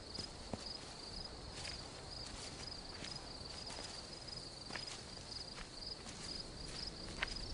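Crickets chirping steadily in a night-time outdoor ambience, in a fast even pulse, with a few scattered soft clicks over it.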